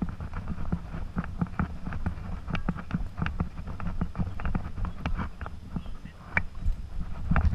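Quick irregular clicks and knocks over a low rumble from a camera rig strapped to a walking dog: the dog's steps on the pavement and the rig jostling on its harness.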